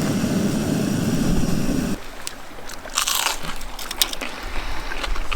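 A steady low rushing noise that stops abruptly about two seconds in, followed by crisp crunches of fried sweet potato chips being bitten and chewed.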